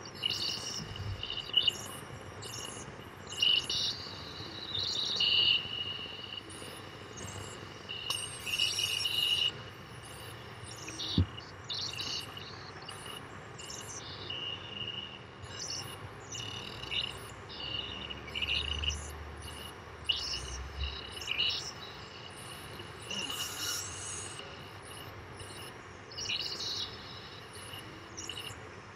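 Synthesized sound from the PlantMax plant-music interface, generated from a plant's bio-impedance readings taken by a skin-galvanic sensor on its leaf: a steady high tone with many short, scattered high chirps.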